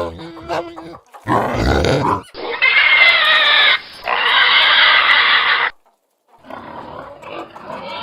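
Domestic pigs grunting, then two long, loud, high-pitched squeals one after the other, then softer grunting after a short pause.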